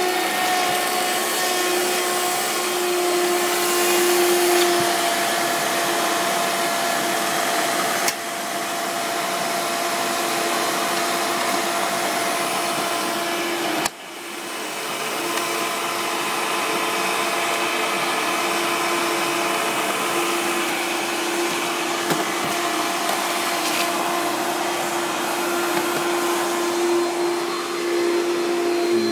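A 1995 Hoover Turbopower 3 upright vacuum cleaner running steadily with its motor's hum, with two short dips in level about eight and fourteen seconds in.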